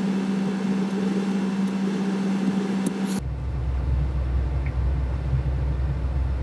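Steady hum in the cabin of a VW Crafter van with its engine idling. About three seconds in it changes abruptly to a deeper, steady low rumble.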